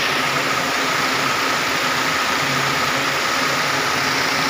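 Multi-head cord braiding machines running: a steady, even mechanical clatter and whir of bobbin carriers circling their tracks, with a faint steady high tone.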